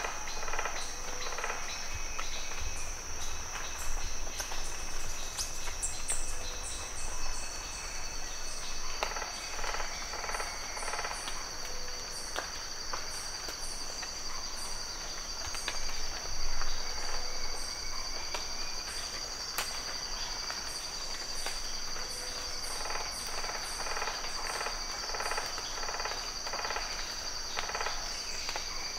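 Rainforest ambience: cicadas stridulating in a steady, high-pitched drone, with several bouts of rapid, evenly repeated hammering noises from an unidentified animal.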